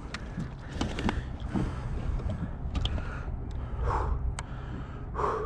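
Wind rumbling on the microphone over water lapping against a plastic kayak hull, with a few light clicks and knocks from the rod and gear, and two short swells of noise near the end.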